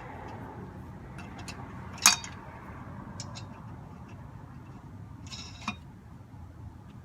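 Metal tools at work on a wheel: one sharp clink that rings briefly about two seconds in, a few light ticks and clicks, and a short scraping rattle near the end, over a low steady background hum.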